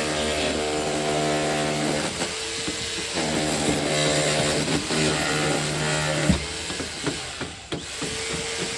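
Jackhammer breaking concrete, run in two bursts of about two and three seconds, with a steadier hum in the gap between them and near the end.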